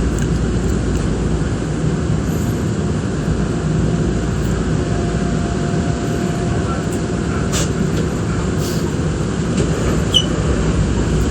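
Nankai Koya Line electric train running, heard from inside the car: a steady low rumble with a few short clicks and a brief high squeak about ten seconds in.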